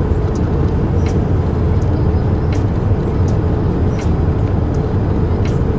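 Airliner cabin noise: a steady, loud low rumble of the jet engines and airflow heard from inside the passenger cabin, with a faint hum and a few light clicks.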